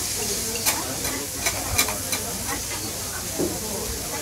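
Noodles sizzling on a hot flat steel teppan griddle, with a metal spatula scraping and clicking against the griddle about twice a second as the noodles are stirred and spread.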